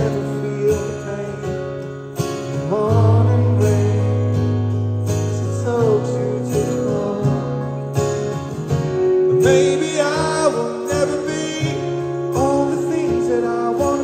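Live rock music: a male voice sings the melody over a strummed acoustic guitar, with the band's bass notes changing every second or two.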